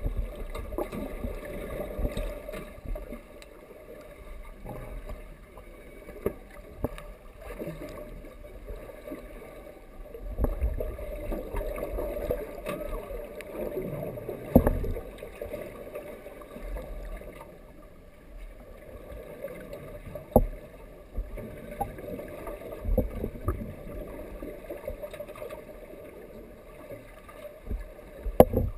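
Muffled underwater sound picked up through a camera's waterproof housing: a steady low drone with faint steady tones above it, broken by occasional dull knocks, the loudest about fifteen seconds in and another about twenty seconds in.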